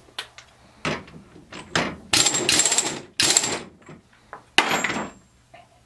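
Air impact wrench hammering in three short bursts, with a few metal clanks before them, as it drives the screw of a clamshell bearing puller to pull a carrier bearing off a Ford 9-inch differential carrier.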